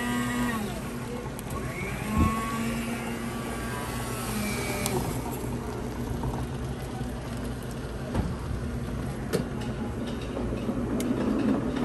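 Curtis hot-beverage dispenser pouring hot chocolate into a paper cup over a steady low hum. A sharp knock comes about two seconds in, and two lighter clicks come later.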